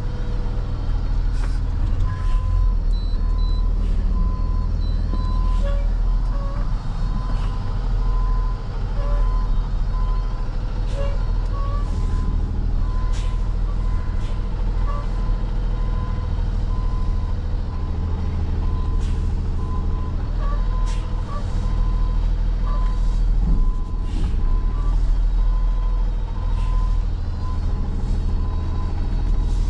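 Diesel engine of a Peterbilt 337 rollback tow truck running under a steady low hum as it reverses, with its backup alarm beeping in a repeating pattern throughout.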